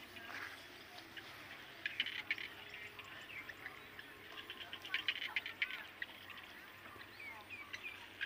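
Quiet outdoor ambience with scattered faint chirps and ticks, clustering about two seconds in and again about five seconds in.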